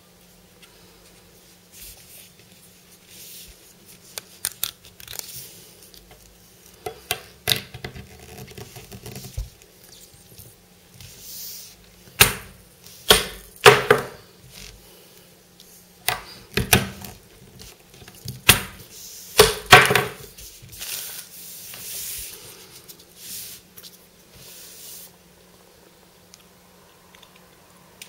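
Plastic spring-loaded pop-up animal toys snapping and clattering on a tabletop: sharp clicks and knocks, some single and some in quick runs, grouped in bursts with short quiet gaps between.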